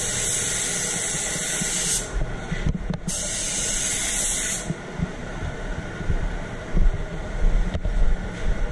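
Gravity-feed spray gun hissing as it sprays direct-gloss white paint, in two trigger pulls with a short break about two seconds in; the spray cuts off after about four and a half seconds. A lower rushing noise with scattered knocks follows.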